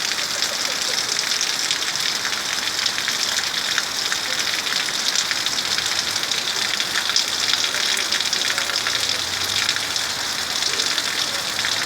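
Rain falling steadily: a dense, even hiss with many small ticks of drops striking surfaces.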